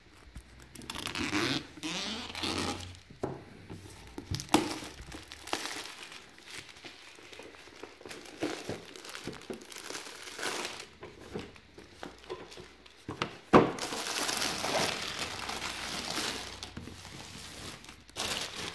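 Clear plastic shrink-wrap being torn open and pulled off a cardboard gift box, crinkling and crackling in irregular bursts. There is a sharp snap about four and a half seconds in and a louder one about two-thirds of the way through, followed by a dense spell of crinkling.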